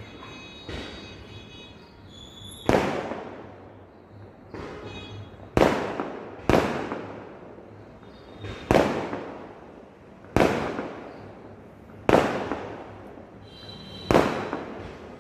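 Skyshot aerial fireworks bursting overhead in a steady volley: about nine sharp bangs one to two seconds apart, each trailing off in an echo.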